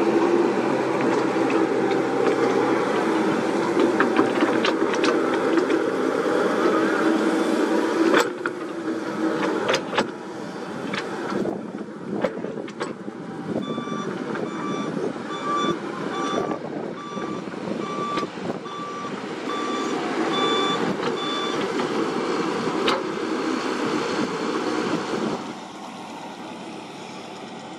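Komatsu PC78US mini excavator's diesel engine running under load as it digs, with a few sharp knocks from the bucket and boom. Through the middle stretch its travel alarm beeps repeatedly, a bit more than once a second, then stops.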